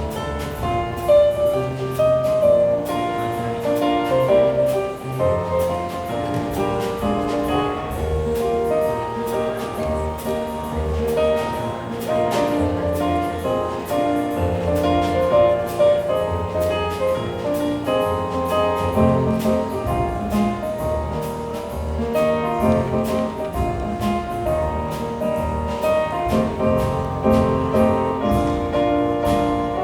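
Live music with piano and a steady beat of sharp percussive ticks over sustained pitched notes.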